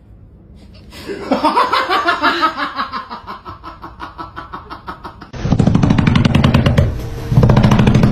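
A person laughing in rapid pulses, falling in pitch. A few seconds in, a louder, rhythmic low-pitched rumble takes over.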